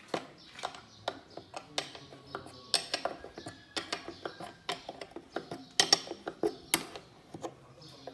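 Sharp metallic clicks and clanks of spanners working the bolts of a plough mouldboard, coming irregularly a few times a second.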